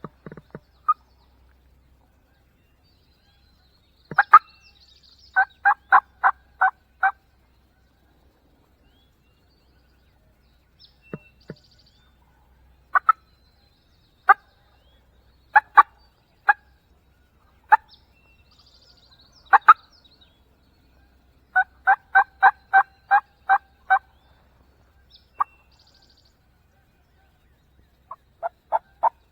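Turkey yelping: runs of six to eight evenly spaced yelps, one about 5 seconds in and one about 22 seconds in, with single calls scattered between them and another run starting near the end.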